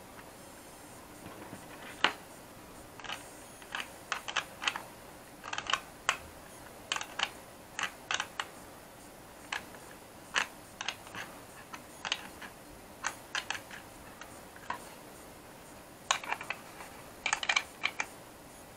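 Scattered sharp metal and plastic clicks and taps as a small flat wrench works a brass antenna connector nut tight on a plastic remote-control shell, with a quick run of clicks near the end.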